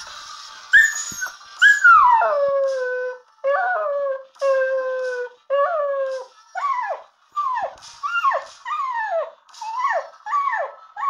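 A dog howling, its 'singing': a long howl about a second in slides down and holds a low note, then a string of shorter howls follows, about one a second, each gliding downward.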